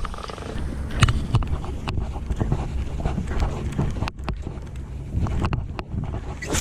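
Wind buffeting the microphone over a steady low rumble aboard a small fishing boat at sea, with scattered sharp clicks and knocks.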